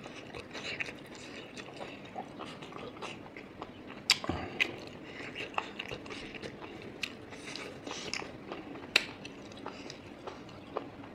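Close-up mouth sounds of eating pork intestine and rice: chewing with frequent wet lip smacks and clicks, a louder smack about four seconds in and again near nine seconds.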